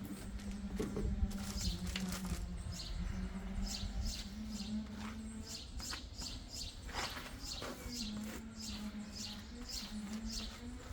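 A bird calling with short high chirps that fall in pitch, repeated about two or three times a second, over a steady low machine hum.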